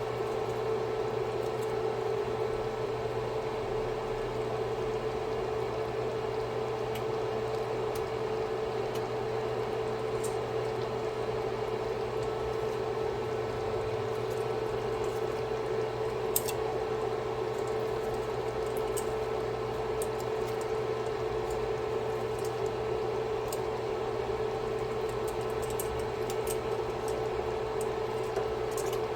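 Creamy Tuscan chicken sauce simmering in a pan, small bubbles popping and ticking steadily over a constant hum, with one sharper pop about halfway through.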